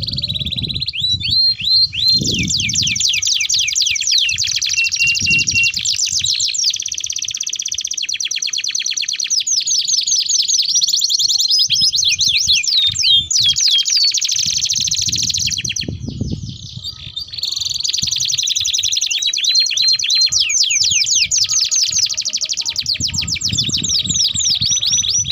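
Domestic canaries singing long, fast rolling trills and chattering runs of repeated notes, mixed with quick downward-sweeping notes, almost without a break.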